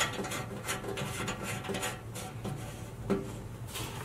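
Round metal multi-pin cable connector being handled and fitted onto its panel socket: irregular small clicks and rubbing, with the cable scraping over the bench. A low steady hum runs underneath.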